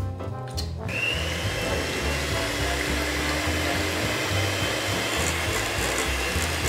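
Electric hand mixer switched on about a second in, then running steadily as its beaters whisk the ice-cream mixture toward soft peaks in a glass bowl. Background music with a steady bass beat plays underneath.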